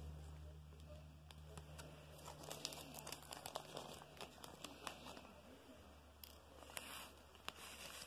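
Faint scattered small clicks and crinkling from diamond-painting work: resin drills and the canvas's plastic cover being handled.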